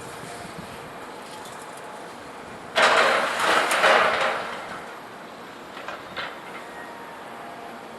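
Scrap metal crashing and clattering as a loader handles it: one loud crash about three seconds in that rattles on for about a second and a half, followed by two fainter bangs a few seconds later.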